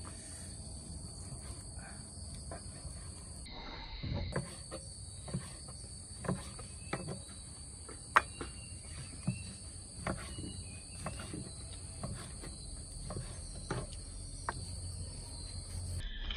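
Knife cutting through pork and knocking on a wooden chopping board, a series of short irregular knocks about once a second, the sharpest about halfway through. Steady high-pitched insect drone behind it.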